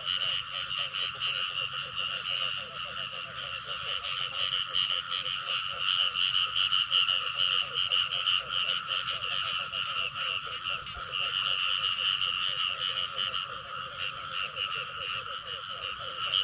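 Dense chorus of frogs calling without pause: a steady high trilling over many quicker, lower pulsed calls.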